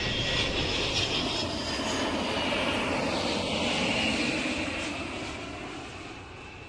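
Airplane engines running with a steady rushing noise, fading out over the last two seconds.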